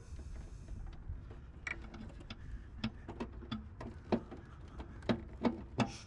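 Scattered light clicks and taps at an uneven pace, a few sharper ones near the end, as the hood release cable is handled and fed through the engine bay.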